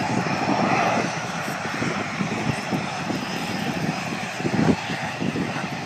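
BAE Hawk T1 jet trainers' Adour turbofan engines running on the ground at a distance: a steady jet rush with a faint high whine.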